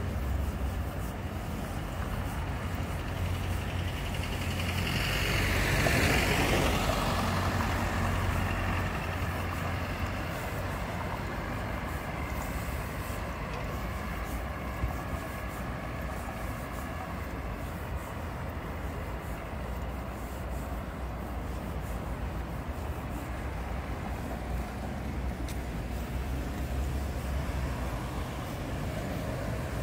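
City street traffic: a steady low rumble, with a vehicle passing close about five seconds in, its noise swelling and then fading.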